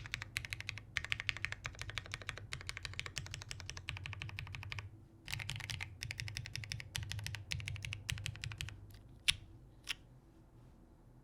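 Mechanical keyboard built with lubed Cherry MX Brown tactile switches on a polycarbonate plate, under GMK keycaps, being spammed: fast bursts of rapid keystrokes. Near the end come two sharper single key presses, and then the typing stops.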